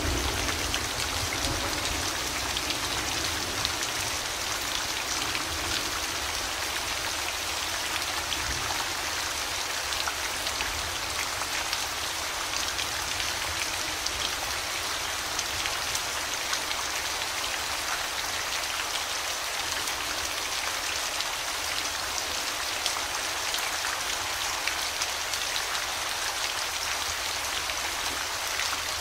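Steady rainfall, an even hiss of many fine drops pattering on surfaces. A low rumble underneath eases off about a second in.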